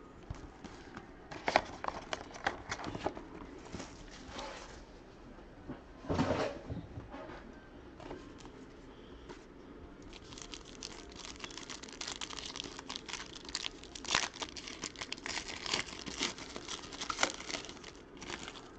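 Trading card pack wrappers crinkling and tearing as packs are opened by hand, with scattered crackles and clicks of handling. The crinkling grows busier from about ten seconds in.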